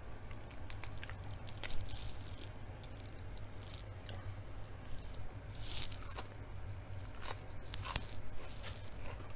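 Crisp leaf lettuce torn apart by hand, then bitten and chewed with a crunch.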